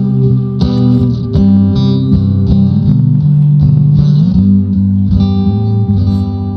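Guitar music: plucked guitar notes with a bass line over a steady pulse.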